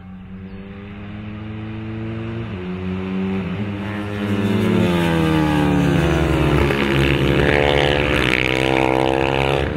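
Moriwaki MD250H race motorcycles' single-cylinder four-stroke engines at high revs, more than one at once. They grow louder over the first few seconds as the bikes come closer, with the engine notes sliding down and back up in pitch and crossing each other.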